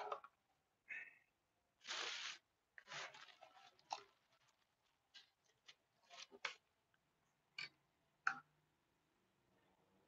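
Faint scattered rustles and clicks of a phone being handled close to its microphone, with a sharp tap near the end as a finger touches it.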